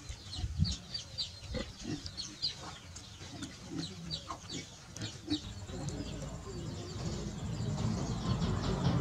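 Birds chirping in many short, high peeps, thinning out in the second half. A low rumbling noise builds up through the second half and cuts off at the end.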